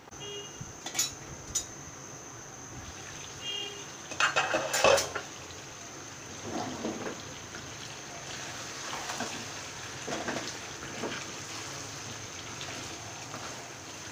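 Cookware clattering, loudest about four to five seconds in, then a wooden spatula stirring and scraping pieces of braised beef around a pan in irregular strokes.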